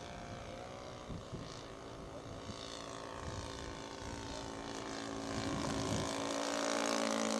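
Saito 120 four-stroke glow engine of a radio-controlled model SE5 biplane running in flight. It is a steady drone that grows louder as the plane comes nearer.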